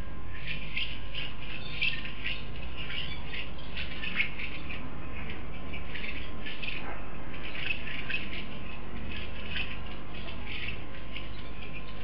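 Red-vented bulbuls giving many short, quick calls and squawks, one after another, over a steady low hum.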